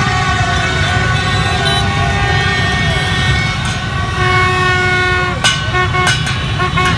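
Many horns tooting and held over the rumble of a dense crowd of motorbike engines, some tones wavering up and down. A few sharp bangs come near the end.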